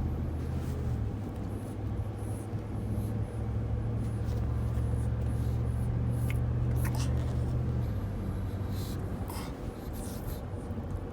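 Steady low drone of a moving truck heard from inside the cab, engine and road noise, with a few faint clicks and rattles.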